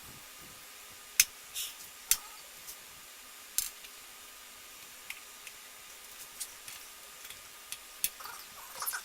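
Scattered sharp clicks and light taps of small hard parts knocking together, about eight over a few seconds: the loudest just over a second in, then about two seconds in, with a small cluster near the end. These are typical of a wire door hanger and its knobs being handled.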